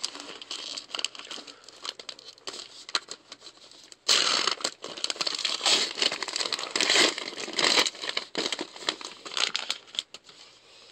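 Crinkling and tearing of wrapping as a sealed trading-card hobby box is unwrapped and opened, with a dense spell of crackling from about four to eight seconds in.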